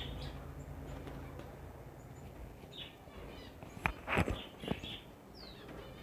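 Small cage birds chirping: a few short, separate calls, the loudest run about four seconds in, and a falling whistle near the end.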